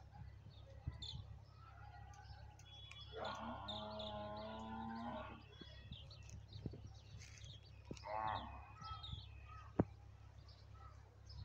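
A cow mooing once in a long, low call lasting about two seconds. A shorter call follows about eight seconds in, and small birds chirp faintly throughout.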